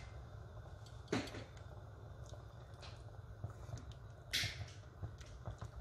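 Pieces of fish being put by hand into a pot of tempoyak broth: two brief soft splashes, about a second in and again a little after four seconds, over a low steady hum.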